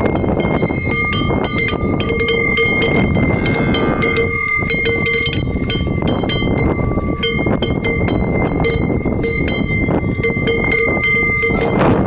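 Cowbells on grazing cows ringing irregularly, with frequent sharp clapper strikes and held ringing tones, over heavy wind rumble on the microphone.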